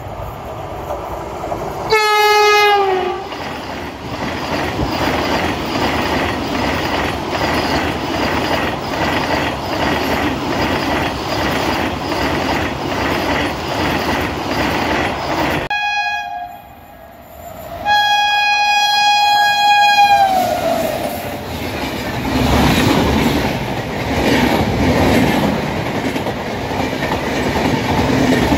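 Indian Railways train passing with its locomotive horn sounding: a short blast about two seconds in, then a steady rumble with regular wheel clatter over rail joints. Around the middle the rumble drops away and the horn sounds twice more, a short toot and then a longer blast that sags in pitch as it ends, before the rumble and clatter return.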